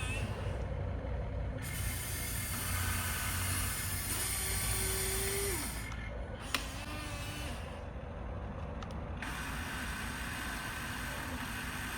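Small electric motors and gearboxes of a radio-controlled toy construction vehicle running with a whirring, ratcheting mechanical sound. A steady motor tone comes in about four seconds in and falls away just before six seconds, followed by a sharp click.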